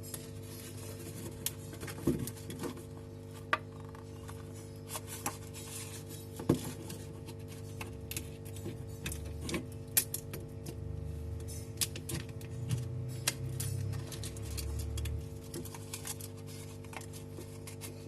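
Irregular small clicks and taps of repair tools against a smartphone's frame and glass as its broken screen assembly is pried off, over soft background music.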